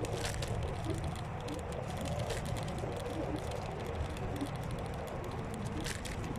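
Electric scooter riding along a forest track: a steady low rumble from the ride, with light clicks and rattles scattered through it.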